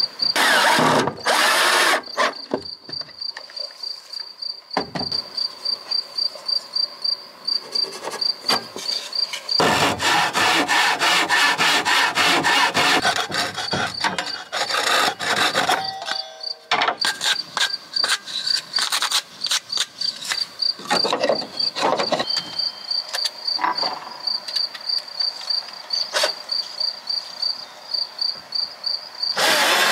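Woodworking with a power drill: short loud bursts of the drill into wood, scattered knocks and clatter of handling timber, and a dense run of rapid clicks about ten seconds in. Behind it an insect chirps steadily at a high pitch.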